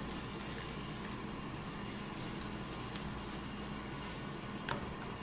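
Faint squishing of homemade slime and light clicks of plastic straws as hands press the straws into it, with one sharper click near the end, over a low steady room hum.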